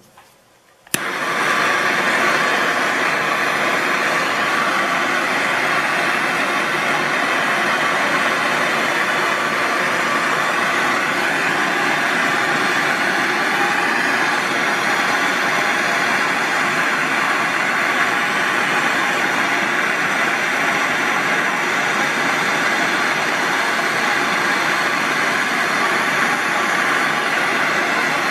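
Propane torch lit with a click about a second in, then burning with a steady, loud hiss.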